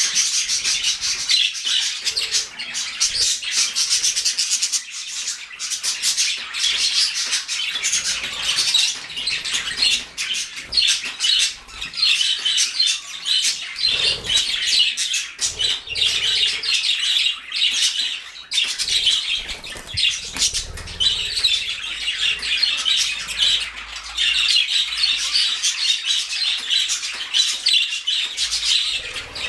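A flock of pet budgerigars, with cockatiels among them, calling without pause: dense, high chirping and warbling chatter, with occasional wing flutters.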